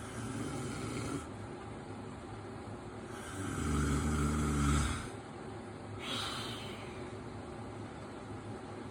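A man snoring in his sleep: one loud, deep snore about three seconds in, lasting under two seconds, with softer, airier breaths at the start and about six seconds in.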